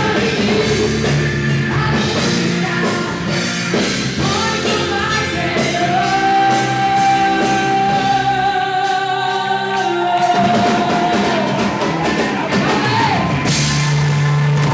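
Praise and worship song: a singer holding long notes over a band with drum kit.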